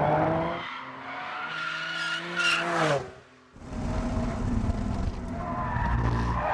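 RUF CTR Yellow Bird's twin-turbo flat-six engine at speed on a race track. Its revs fall off the throttle, the sound drops away sharply for about half a second just after three seconds in, then the engine comes back and runs on.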